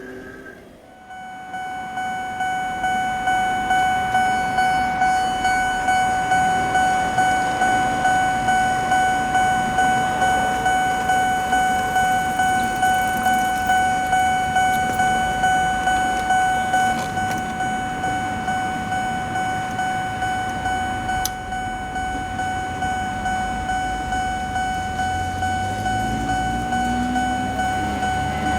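Japanese railway level-crossing warning bell ringing its repeated "kan-kan" strokes, about two a second, starting about a second in. Near the end a train's low rumble comes in under the bell.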